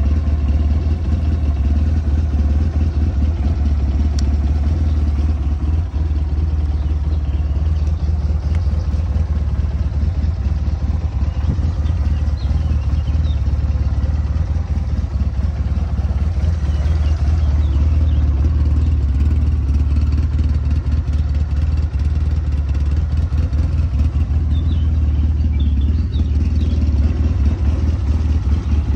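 SMC Quadzilla CBT-250 ATV's 250 cc engine idling steadily, the quad standing still.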